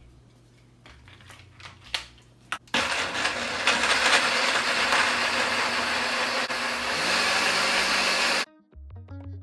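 Countertop blender running, its motor whirring loudly as it blends a liquid mixture of soup ingredients. It starts about three seconds in, after a few light knocks, and cuts off suddenly near the end.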